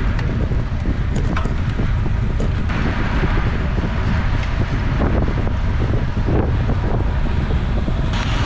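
Heavy wind buffeting the microphone of a camera on a road bike riding at about 20 mph: a steady, loud rumble and rush of air.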